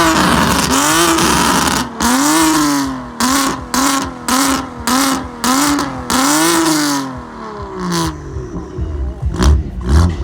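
BMW M car with an aftermarket exhaust being revved while stationary: two longer revs, then about six quick throttle blips half a second apart, then one more rev that falls away. A few sharp exhaust pops and cracks come near the end.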